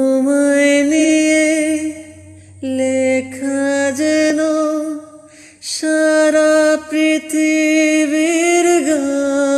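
A young man singing unaccompanied, holding long, slightly wavering notes. He sings in three phrases, with short breaks about two seconds and five seconds in.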